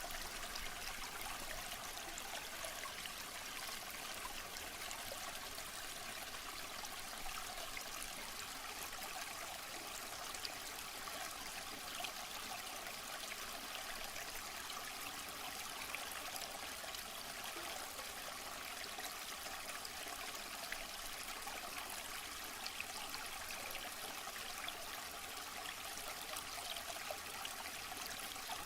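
Steady rushing and splashing of falling water from a waterfall, an even unbroken wash with small splashes throughout.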